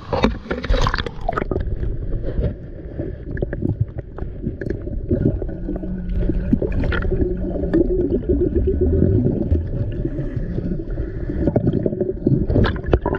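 Muffled underwater gurgling and water movement as a snorkeler dives to dig out a metal-detector target, with scattered knocks and scrapes.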